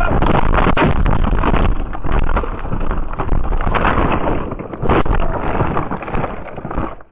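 Loud jolting rumble and crashing of a vehicle crash heard from inside the cabin, full of knocks and bangs, with a sharp bang about five seconds in. It then dies away and cuts off suddenly near the end.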